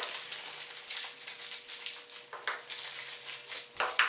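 Small steel carriage bolts and nuts being handled, with a run of light metal clicks and clinks and some rustling as they are set down on a wooden tabletop; a sharper clink near the end.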